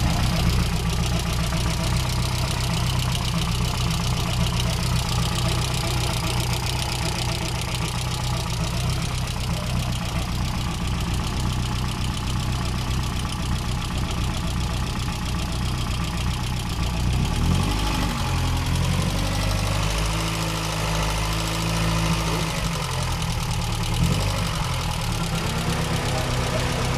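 VW 8-valve four-cylinder engine idling steadily, with the lifter tapping still there after a new oil pump. The tapping was blamed on oil not being pushed up to the hydraulic lifters.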